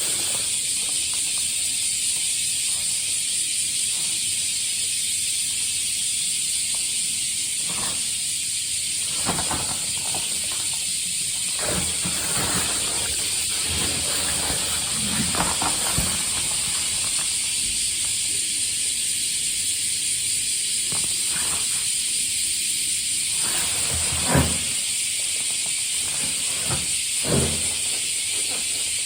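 Cicadas droning in a steady, high-pitched chorus throughout, with scattered rustles and knocks from handling and footsteps, the loudest about 24 and 27 seconds in.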